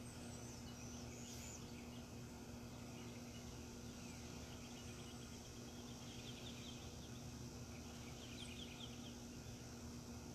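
Faint outdoor ambience: a steady low hum, with a few faint, high, rapid chirping trills from small birds or insects about a second in, around the middle and near the end.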